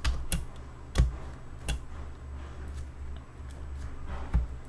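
A few sharp clicks from a computer mouse and keyboard being worked, most of them in the first two seconds, over a steady low hum.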